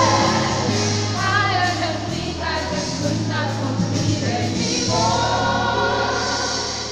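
Gospel choir singing in harmony over a steady, sustained low accompaniment.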